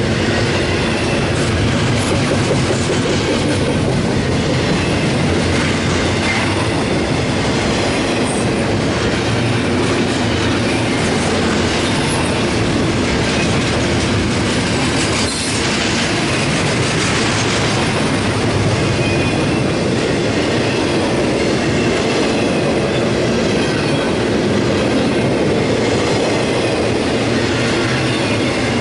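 Double-stack intermodal freight cars rolling past: a steady, loud rumble and clatter of steel wheels on the rails.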